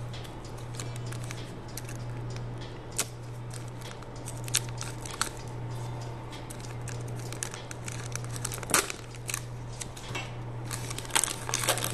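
Foil wrapper of a 2019-20 Panini Select trading card pack crinkling and tearing as it is handled and opened, with scattered sharp crackles that are loudest about nine seconds in and near the end. A steady low hum runs underneath.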